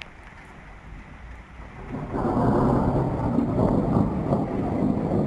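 Thunder: a low rumble swells up about two seconds in and keeps rolling loudly.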